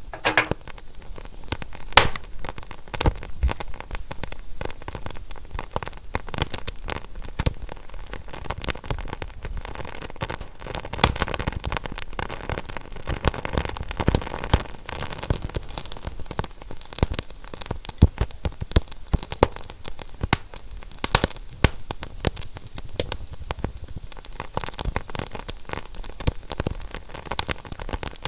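Fire crackling: a dense run of irregular pops and snaps over a steady hiss.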